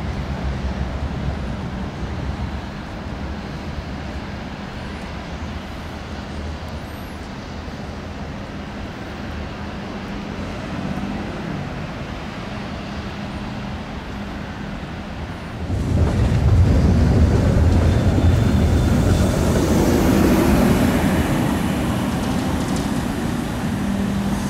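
Light-metro tram running on the rails: a steady low rumble as it approaches, turning suddenly much louder about sixteen seconds in as a tram moves close by.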